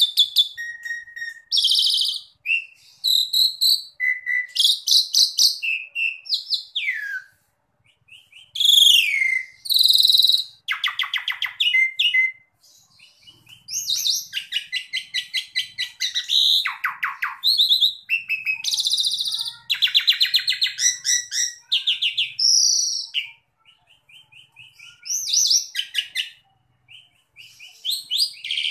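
Asian pied starling (jalak suren) singing a long, varied song: clear whistled notes, some gliding down, mixed with fast rattling, chattering runs, separated by short pauses.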